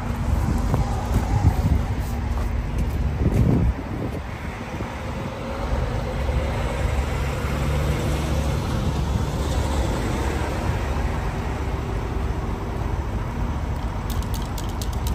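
Loaded log truck's diesel engine idling steadily at the roadside, with road traffic noise; a louder rush about three seconds in cuts off suddenly.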